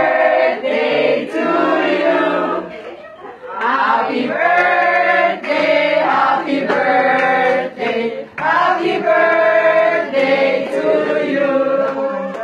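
A group of people singing together in chorus, in long held phrases with short breaks about three seconds in and again about eight seconds in.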